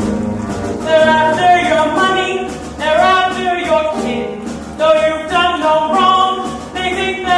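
Live musical-theatre singing: voices holding pitched, sustained notes in a song with accompaniment, a new sung phrase starting roughly every second.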